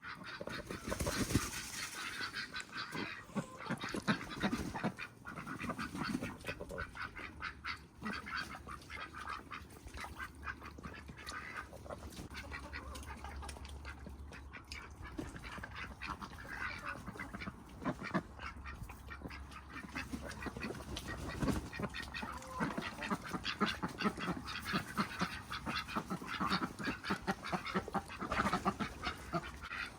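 Farmyard fowl calling: a busy, irregular mix of short quacking and honking calls.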